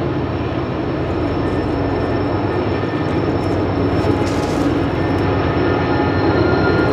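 Steady low drone of an approaching freight train's diesel-electric locomotives, still out of sight around the curve, growing slowly louder. A brief hiss is heard about four seconds in.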